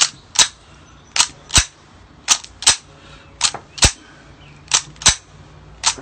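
Mauser C96 pistol's bolt being racked by hand again and again to unload it: pairs of sharp metallic clacks, the bolt pulled back and snapping forward, about five times at roughly one-second intervals. Each cycle ejects an unfired 7.63×25 mm cartridge.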